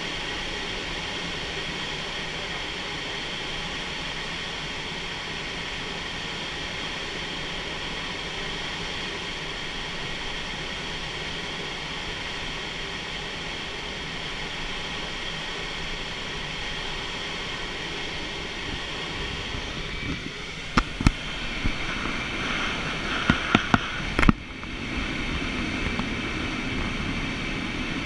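Steady rush of airflow in a glider cockpit in flight. About three quarters of the way through, a handful of sharp clicks or knocks come in quick succession.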